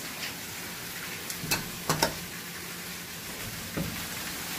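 Steady rain falling, an even hiss, with a few sharp taps about one and a half to two seconds in and once more near the end.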